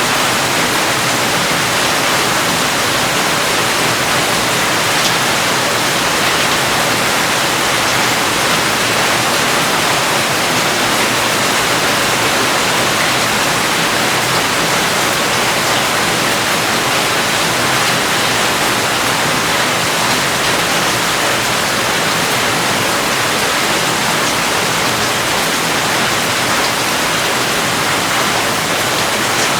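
Steady, even hiss of heavy rain, with no single drops, thunder or other events standing out.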